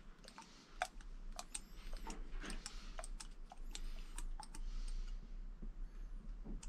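Irregular light clicks and taps of small hard parts and tools being handled while assembling an RC car, coming quickly for about five seconds and then thinning out.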